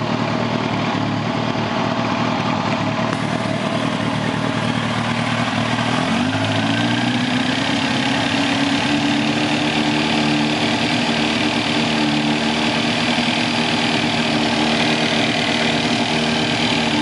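2006 Kawasaki ZX-10R inline-four engine idling, then the throttle is opened a little about six seconds in and the revs rise and hold steady. The owner says this slight throttle brings in a ticking knock that stops when he lets off, which he suspects is rod knock, a bearing, or the timing chain or its tensioner.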